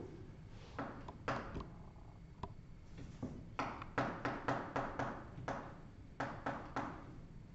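Chalk striking and scraping on a blackboard as a word is written: a series of short, sharp taps, with a quick run of them about halfway through.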